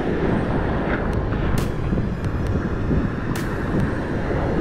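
Steady rush of surf foaming around the angler, mixed with wind rumbling on the microphone. A couple of faint clicks stand out about one and a half and three and a half seconds in.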